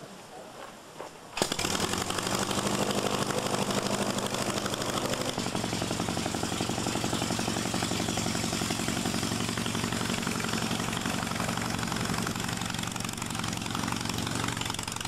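The engine of a Wallis autogyro starting abruptly about a second and a half in, then running steadily with its propeller turning, the note changing a little around five seconds in.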